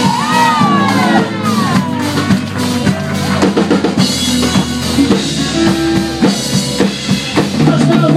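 Live band playing: drum kit and congas over an electric bass line, with a lead line bending up and down in pitch in the first two seconds.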